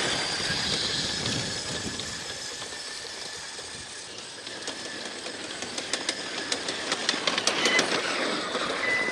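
Wheels of a ride-on 1/14-scale RC4WD 797F haul truck and a small RC truck rolling and crunching over gravel, with a steady high whine from the brushless drive motors. The crunching and sharp pebble clicks grow louder over the last few seconds.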